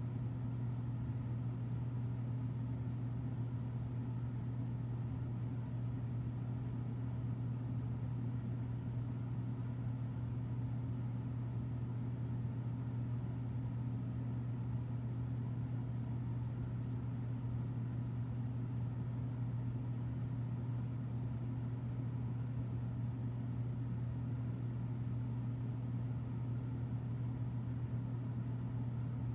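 A steady low hum that stays constant, with no change in pitch or level.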